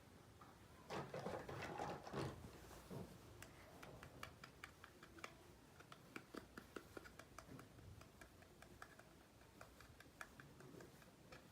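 Miniature toy kitchen pieces being handled: a brief rustle about a second in, then a run of faint, light clicks and taps, several a second.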